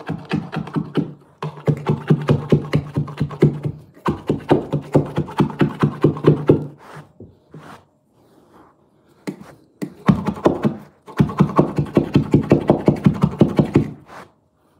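A hand tool working a carpet's edge along a skirting board: rapid rasping strokes, about six a second, in runs of two to three seconds, with a pause of a few seconds in the middle.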